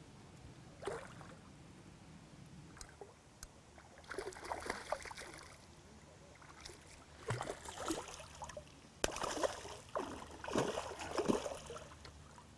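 A hooked mirror carp splashing and thrashing at the water's surface as it is played in, in irregular bursts from about four seconds in.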